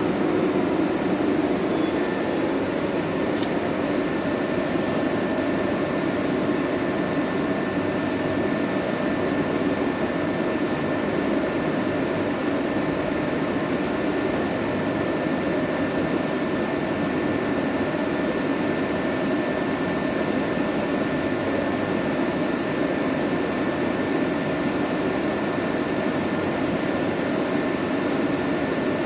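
Cazeneuve ID-MAX CN 600 CNC lathe running: a steady machine rush with a thin whine that comes in about two seconds in and a short click soon after. A higher whine joins about two-thirds of the way through.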